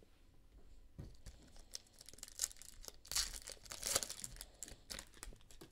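A foil wrapper of a Panini Optic football card pack being torn open and crinkled, with the sharpest rips between about two and a half and four seconds in.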